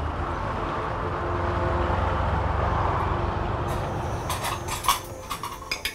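Steady low rumble with a hiss, like passing traffic, swelling a little near the middle and then easing off. Near the end come several sharp clicks and taps.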